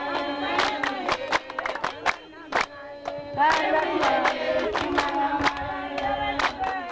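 A group of villagers singing together over sharp, quick percussive beats that keep time for dancing. About two seconds in the singing drops away for a moment, then comes back strongly.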